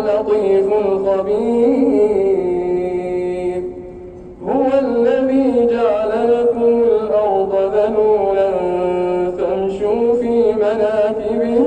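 A man reciting the Quran in a slow, melodic chant, holding long notes that glide up and down, with a short pause for breath about four seconds in.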